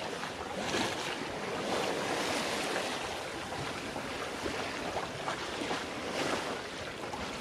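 Sea water rushing along a sailing yacht's hull as it sails, with wind on the microphone: a steady hiss that swells a little now and then.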